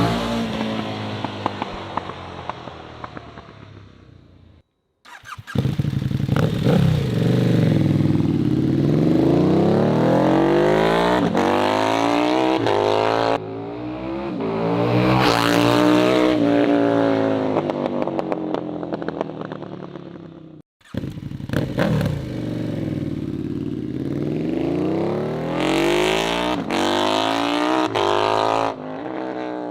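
KTM 1290 Super Duke R's V-twin, breathing through an Austin Racing full titanium exhaust, revving hard as the bike rides by several times, the pitch climbing under acceleration and falling away as it passes. The sound drops out abruptly twice, about five and about twenty-one seconds in, and picks up again.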